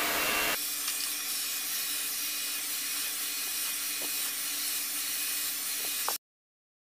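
Handheld hair dryer blowing steadily, a constant airy hiss with a faint steady hum in it. It cuts off abruptly about six seconds in.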